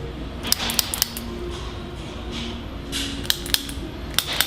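Chiropractic activator, a spring-loaded adjusting instrument, firing against the neck with sharp clicks: three quick clicks about half a second in, then a pair about three seconds in and another near the end. It is turned down to a lower force setting.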